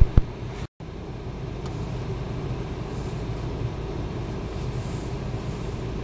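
Steady low hum of a car idling, heard from inside the cabin. A sharp click comes just after the start, and the sound cuts out completely for a moment under a second in.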